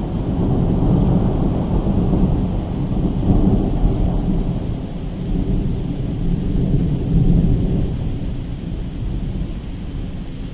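Rain falling with a long roll of thunder, a low rumble that swells several times and dies away toward the end.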